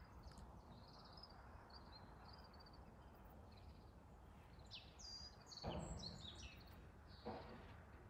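Faint outdoor morning ambience with small birds chirping and whistling on and off, and two brief low rustling bursts of noise, about six and seven seconds in.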